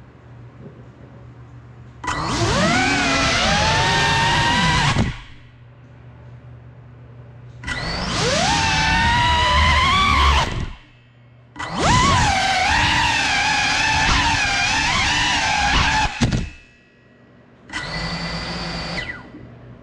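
Cinelog 35 FPV cinewhoop drone's motors and propellers whining in four throttle bursts, the pitch rising and falling as the throttle changes, with a low hum in the lulls between bursts.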